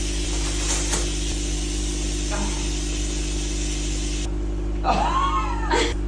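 A woman sneezing once near the end: a short drawn-out voiced 'ah' that rises and falls, breaking into a sharp burst, over a steady low hum.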